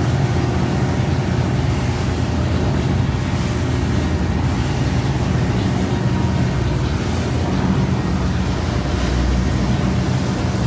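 A lobster boat's engine running at a steady, even drone while the boat is underway, with water rushing along the hull and wind hiss over it.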